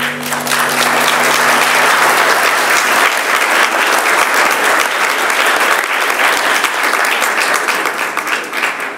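Audience applauding, many hands clapping steadily at the end of a saxophone number.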